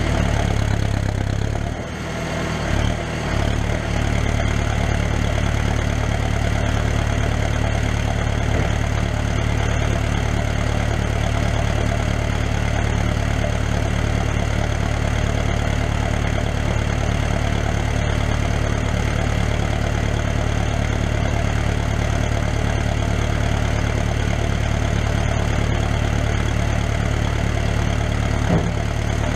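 Site dumper's engine and exhaust running steadily while the tipped skip is lowered. The note dips briefly about two seconds in, then holds steady.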